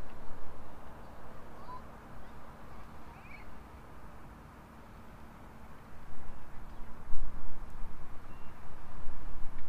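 Gusty wind rumbling on the microphone at the water's edge, louder from about six seconds in, with a few faint, short bird calls in the first half.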